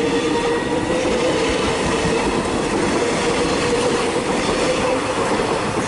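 Alstom X'Trapolis electric suburban train running past close by, a steady rumble of wheels on rail with a steady hum running through it.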